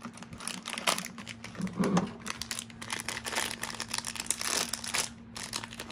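Plastic blind-bag wrapper crinkling as hands handle and tear it open, a dense run of small crackles.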